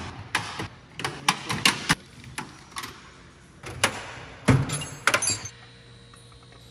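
Loose metal sockets and tools clinking and clattering in a steel toolbox drawer as it is rummaged through, in quick irregular clusters, loudest about four to five seconds in; the clatter stops near the end, leaving a low steady hum.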